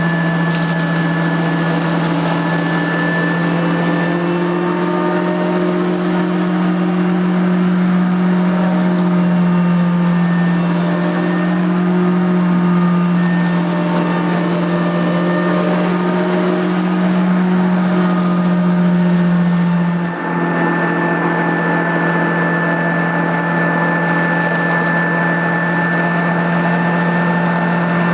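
Nilco 271 commercial upright vacuum cleaner running continuously while vacuuming up dirt, a loud steady motor hum with a brief dip in level about two-thirds of the way through.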